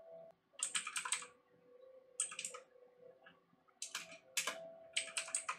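Computer keyboard being typed on in several short bursts of keystrokes with brief pauses between them.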